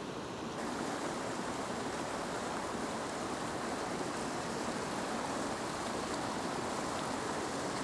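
Steady rushing of a river's current flowing past. The sound gets a little louder and hissier about half a second in.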